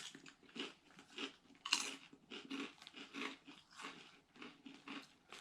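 Someone crunching and chewing Ruffles All Dressed ridged potato chips: irregular crisp crunches several times a second, the loudest a little under two seconds in.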